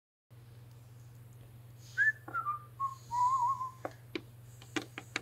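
A person whistles a short descending phrase that ends in a wavering held note, over a steady low hum. A few sharp light clicks follow near the end.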